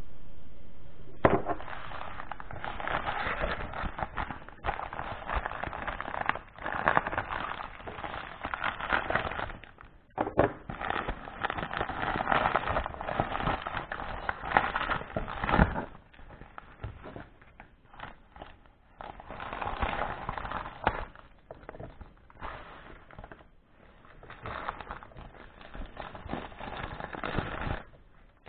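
Plastic mailer bag and plastic wrapping crinkling and crackling as they are handled and opened, in stretches of a few seconds with short pauses between.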